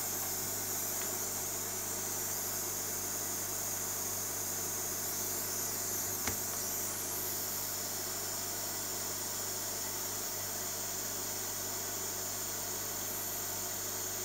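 Steady hiss with a low mains-like hum under it, the background noise of a workbench while soldering. One faint click about six seconds in.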